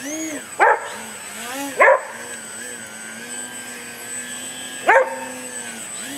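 A dog barks three times, sharp and loud, over the steady whine of a hovering electric RC plane's brushless motor and 9x5 propeller, whose pitch wavers up and down as the throttle is worked to hold the hover.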